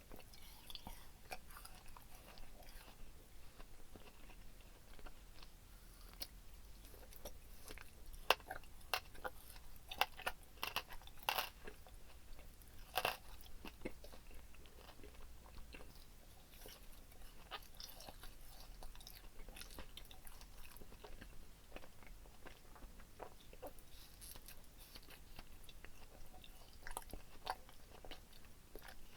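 Close-miked chewing and biting of gummy candy: wet, sticky mouth sounds with short crunches, loudest and sharpest in a run of bites in the middle stretch.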